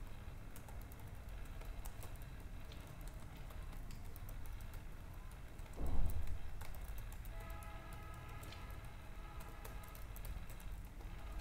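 Typing on a computer keyboard: irregular runs of quick key clicks, with one louder low thump about six seconds in.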